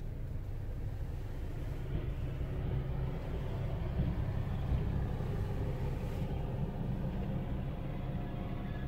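SM42 diesel shunting locomotive passing close by, its diesel engine making a steady low rumble that is loudest about four to five seconds in as it crosses directly in front, with a couple of knocks from the wheels. Heard from inside a car.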